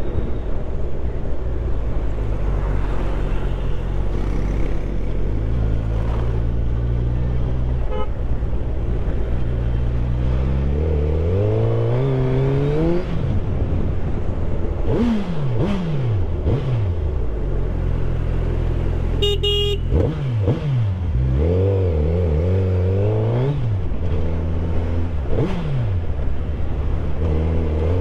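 Suzuki Hayabusa's inline-four engine under way, its pitch rising under throttle and dropping back several times, over steady wind rush. A vehicle horn toots briefly about two-thirds of the way through.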